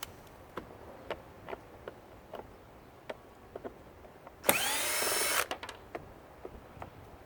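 Cordless drill-driver run once for about a second, about four and a half seconds in, its motor whine rising and then holding steady as it turns out a screw in the shop vac's plastic housing. Light clicks and knocks of plastic parts being handled come before and after it.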